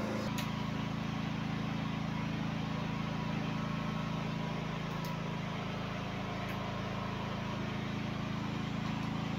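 A motor running steadily, a low even drone at a constant pitch.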